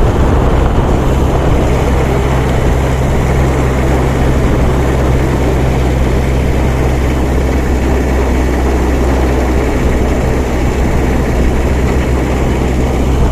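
Car under way at a steady pace, heard from on board: an even, low engine drone under a steady rushing noise.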